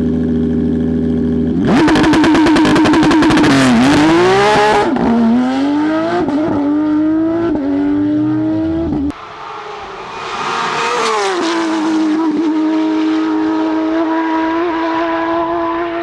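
Porsche 992 rally car's engine under hard acceleration, its pitch climbing and dropping sharply several times with gear changes, with a dense rattling crackle over it for the first few seconds. About nine seconds in the sound cuts abruptly to a quieter stretch where the engine note rises and then holds steady.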